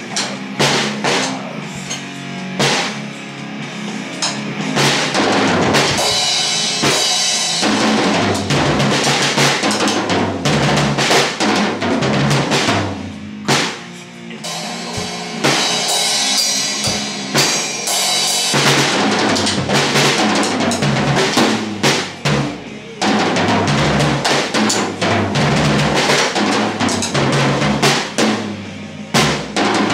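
Acoustic drum kit played in a continuous groove: bass drum, snare and toms struck under ringing cymbals, with brief let-ups about halfway through and again later.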